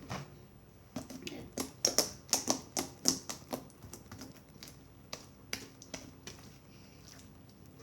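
Homemade slime being kneaded and stretched by hand, making a quick irregular run of sharp clicks and pops. They come thickest in the first few seconds and thin out after about four seconds.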